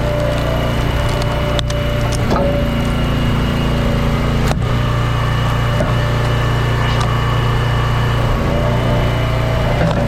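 Engine of a powered log splitter running steadily, with hickory rounds cracking and splintering as they split, a few sharp cracks in the first half.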